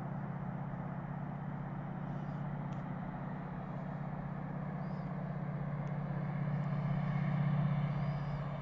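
Approaching diesel train: a steady low engine drone that grows louder, is loudest near the end, then eases slightly.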